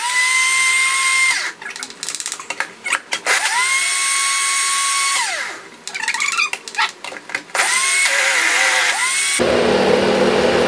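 Personal bullet-style smoothie blender pulsed on frozen banana pieces: the motor runs with a steady high whine and winds down each time it is released. Between the runs there are knocks and rattling as the cup is shaken to loosen the chunks. Near the end it runs continuously with a rougher, noisier sound. The blender, made for smoothies, is struggling with the frozen bananas.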